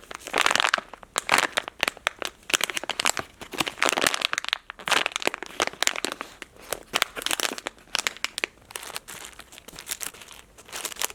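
Packaging crinkling as a squishy toy is handled, a dense run of sharp crackles broken by short pauses.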